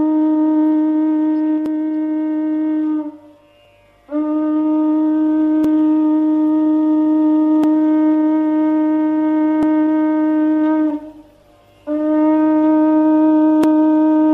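Conch shell (shankha) blown in long, steady blasts on one pitch. The blast breaks off about three seconds in and again at about eleven seconds, each time sounding again a second later.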